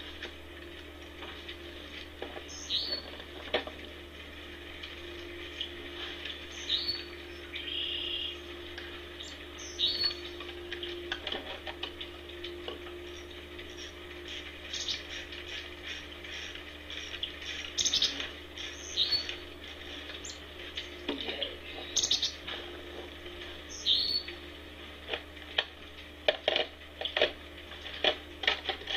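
Scattered small clicks, knocks and rustles of hands handling the snowman cutout and its clothing, growing denser near the end. A bird gives a short, high, falling call every few seconds.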